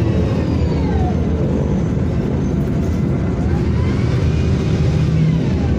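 VDL DB250 double-decker bus engine and drivetrain running on the move, heard from inside the passenger saloon: a steady rumble with a whine that falls about a second in, rises again around the middle and falls near the end as the bus changes speed.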